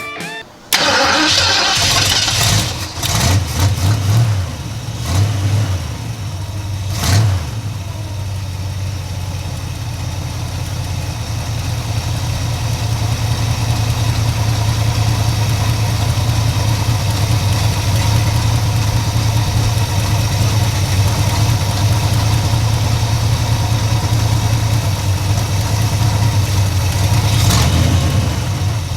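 1968 Ford Ranchero's engine, fed by a freshly rebuilt Edelbrock 1405 four-barrel carburetor, catching about a second in and revving up a few times over the next several seconds, then settling into a steady idle.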